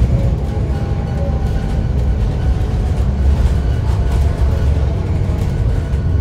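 Double-decker sightseeing bus under way, heard from on board: a steady low rumble of engine and road noise.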